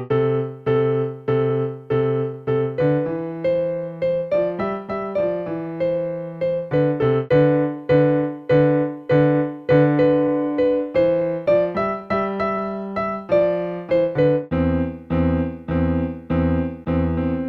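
Electronic keyboard played with both hands: an upper melody of evenly struck notes over a lower part, each note fading after it is struck. A deeper bass line comes in near the end.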